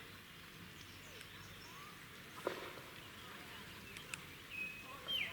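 Steady outdoor hiss with a few faint short bird chirps, and a sharp click about two and a half seconds in and another around four seconds.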